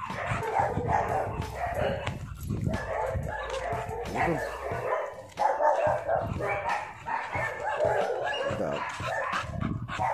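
A young pit bull–type dog barking and whining over and over in short calls.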